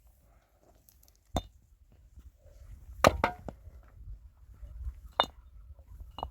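Hard objects knocked together in sharp, ringing clinks: one about a second in, a quick double near the middle (the loudest), and two more toward the end.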